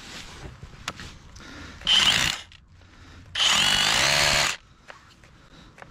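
Battery-powered drill run in two short bursts against rock: a half-second burst about two seconds in, then about a second of motor whine rising in pitch.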